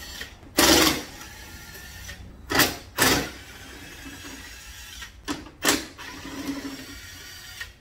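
A cordless drill runs in five short bursts, backing out the screws that hold a grille. The first burst, about a second in, is the loudest.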